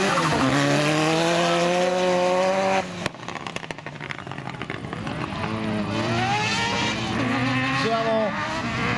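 A lightweight four-wheel-drive autocross prototype buggy's engine running at high revs, its pitch climbing slowly as it slides past on dirt, then dropping away sharply about three seconds in with a spatter of clicks. After that come quieter engine notes from cars farther round the track, rising and falling as they accelerate and lift.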